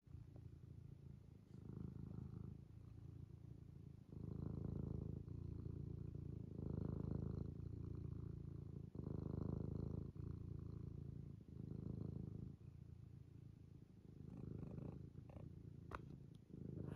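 Tabby cat purring close to the microphone, the purr swelling and easing in step with its breathing, about every two and a half seconds.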